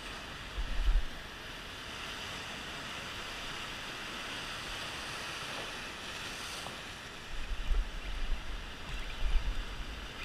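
Ocean surf breaking and washing among rocks, a steady hiss of white water. Wind gusts buffet the microphone with a low rumble about half a second in and again over the last three seconds.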